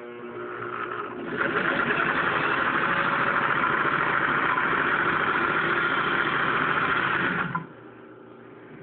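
Vintage Singer Rocketeer sewing machine stitching a seam. The motor speeds up over about the first second, runs steadily at high speed with its fast even needle rattle, then stops suddenly near the end.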